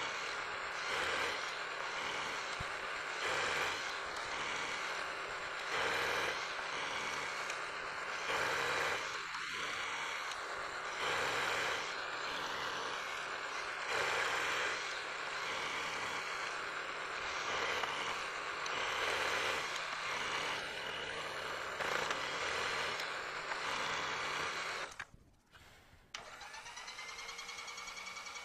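Vertical milling machine's end mill cutting a side of the workpiece under power feed: a steady cutting and machine noise that swells about every two and a half seconds. Near the end it breaks off for about a second, then a motor winds up to a steady, even whine.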